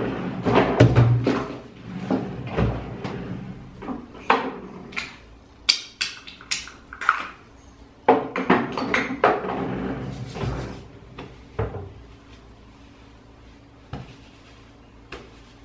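Irregular knocks, clicks and rustles as a hair dryer is handled and put away in a bathroom vanity cabinet. The handling is busiest at the start and again around the middle, then thins to a few faint clicks.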